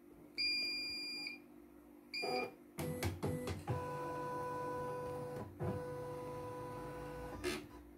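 CNY computerized sewing-embroidery machine being tested: one long electronic beep, a short second beep about two seconds in, then a few clicks and a steady motor hum for about four seconds that stops near the end.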